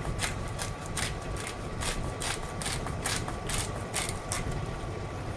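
Black pepper grinder being twisted, its grinding mechanism giving a rhythmic run of gritty clicks about three a second.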